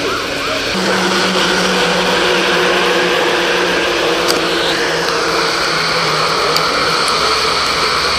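A wailing emergency-vehicle siren stops about half a second in. A steady low engine hum then runs under a constant loud hiss.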